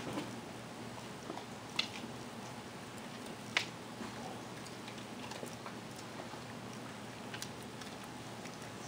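A dog eating dry dog food off the carpet: a few sharp crunches spread out, the loudest about three and a half seconds in, over a steady low room hum.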